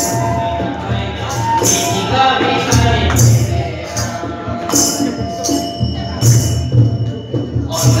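A group of women singing together as they walk, with hand clapping and jingling percussion strokes marking a steady beat about once a second.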